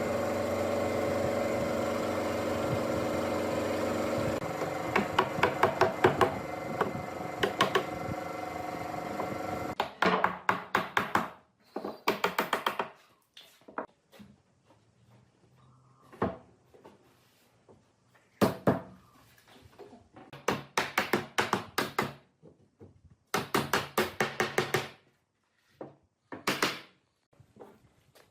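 A power tool runs steadily for about ten seconds, with sharp knocks over it from about four seconds in, then stops. Short runs of quick knocking strikes on wood follow, with pauses between them.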